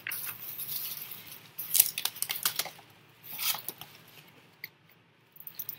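Plastic wig packaging rustling and crinkling as the wig is pulled out of its box and plastic cover, with a few sharp crackles, dying away after about four seconds.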